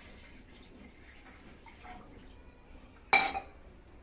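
Water from a glass dripping and trickling into a pan, then a sharp clink with a short ring about three seconds in.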